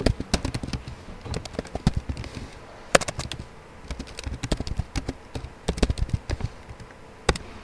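Typing on a computer keyboard: a run of irregular key clicks, with one sharper click about three seconds in.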